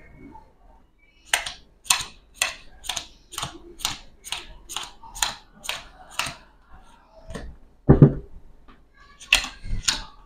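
Playing cards being dealt one at a time onto a tabletop, each card landing with a sharp snap, about two a second. A single heavier thump comes about eight seconds in, then the snapping resumes.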